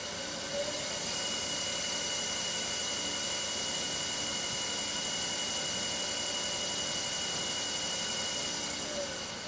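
Permanent-magnet DC servo motor spinning up to speed, running steadily with a high-pitched whine over a hiss, then starting to slow near the end.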